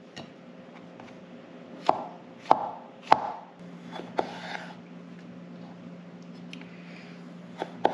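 Chef's knife slicing button mushrooms and cherry tomatoes on a wooden cutting board: four sharp knocks of the blade on the board around the middle, about half a second apart, and a fainter one near the end. The knife is blunt and cuts poorly.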